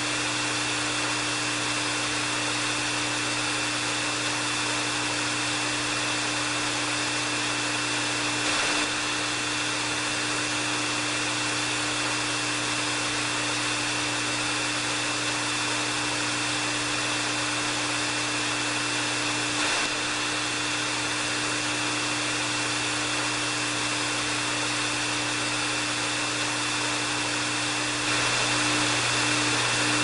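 Electric hair dryer running steadily: a rushing airflow with a motor hum and a thin, steady high whine, growing a little louder near the end.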